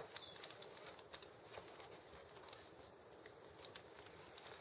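Faint scattered clicks and taps as a wooden clothespin is clipped onto the edge of a cardboard box and fingers press on the glued cardboard, over a steady low hiss.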